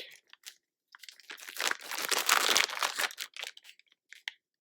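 Packaging of a hair bundle being torn open and crinkled by hand, loudest in the middle, with a few separate crackles near the end.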